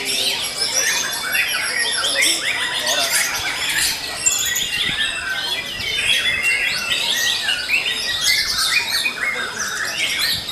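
Many caged songbirds singing at once: a dense, steady chorus of overlapping chirps, trills and whistles.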